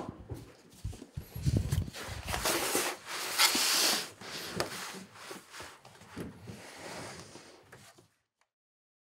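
Gray tabby cat scratching and pawing at the wall and floor to cover its droppings: rough scratching and rustling with soft knocks, loudest a few seconds in. It stops abruptly about eight seconds in.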